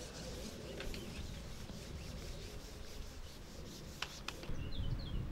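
Long carbon fishing pole rubbing as it is slid back toward the angler, with a couple of sharp clicks about four seconds in. Faint bird chirps near the end.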